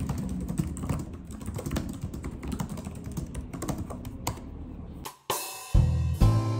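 Typing on a computer keyboard: a quick, uneven run of key clicks. About five seconds in the typing stops and music with a beat comes in.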